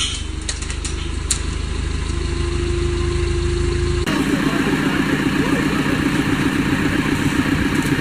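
Forklift engine running, then after an abrupt change about halfway, a backhoe loader's engine running steadily close by.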